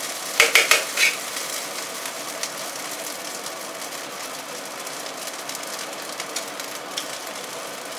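Fried rice sizzling in a pan over a high flame: a steady hiss with small crackles. A few short knocks come in the first second.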